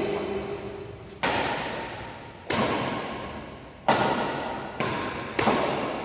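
Badminton rackets smacking a shuttlecock back and forth in a rally: about five sharp hits, roughly one a second, each followed by an echoing decay.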